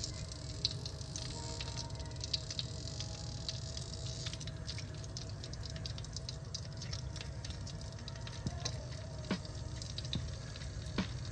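Flour-coated chicken pieces sizzling in oil in a karahi, with scattered small pops and crackles over a steady low hum; the pieces have just gone in and are starting to fry gently over a moderate flame.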